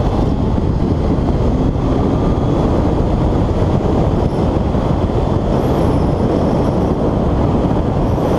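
A Honda Hornet 600 (PC34) inline-four engine running at speed, mostly covered by the steady rush of wind over the helmet-mounted microphone.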